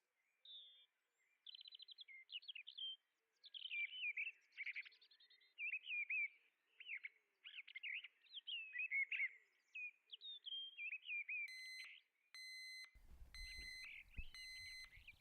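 A songbird singing a rapid, varied run of chirps and warbles. About eleven seconds in, a repeating electronic beep starts and sounds several times in short pulses over a low rumble.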